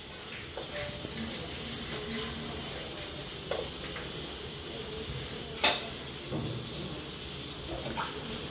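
Steady hissing background noise, with one sharp click about five and a half seconds in.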